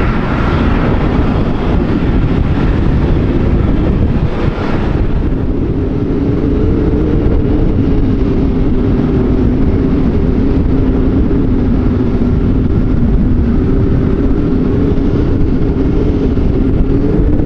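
Jet airliner engines running loudly and steadily: a rushing noise with a low two-note hum beneath it. The upper hiss thins out about five seconds in.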